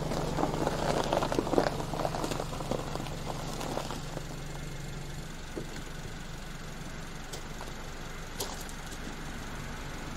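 SsangYong Tivoli Air SUV moving into a parking spot on snowy gravel, its tyres crunching over snow and gravel while the engine runs. The steady engine hum stops about five seconds in, leaving a couple of faint clicks.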